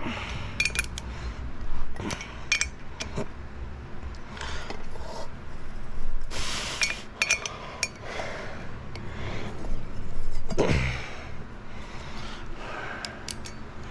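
Metal hand tools and parts clinking and scraping against each other: a string of sharp metallic clinks that ring briefly, with a longer scraping rustle about six seconds in and a heavier knock about ten seconds in.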